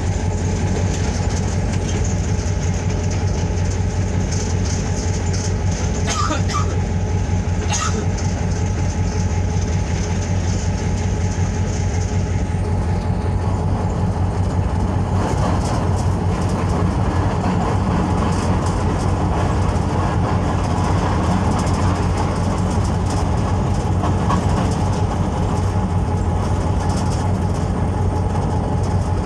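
GMCU-15 diesel locomotive running steadily with a deep engine drone, its wheels rolling over the rails with light clickety-clack. A few sharp clicks come about six to eight seconds in.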